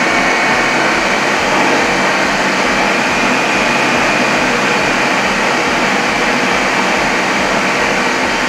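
Electric food processor running steadily with a faint whine, its blade mixing flour, sugar and shortening for a lemon bar crust.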